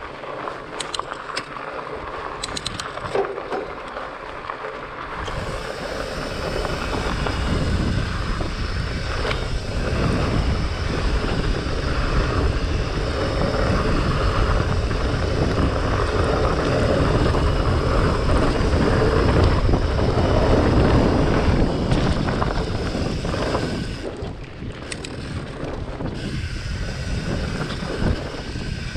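Wind rushing over the microphone with the fatbike's wide tyres rolling over gravel and dirt, rising to a louder steady rush about five seconds in as speed builds and dropping back briefly near the end. A few light ticks in the first seconds.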